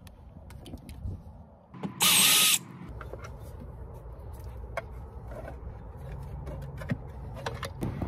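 Cordless drill/driver backing out a cover screw in one short burst about two seconds in, followed by scattered light clicks as the plastic cover of the power control board is handled and pulled off.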